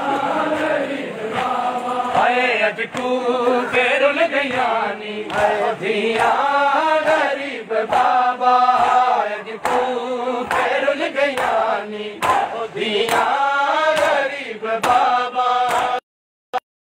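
A noha, a Shia lament, chanted in unison by a group of voices, with its pitch rising and falling. Sharp short hits fall now and then. The sound cuts off abruptly near the end.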